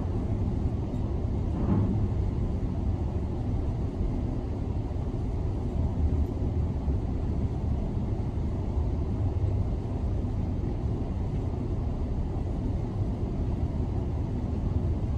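Steady low rumble of heavy demolition machinery breaking up a concrete viaduct, muffled through office window glass.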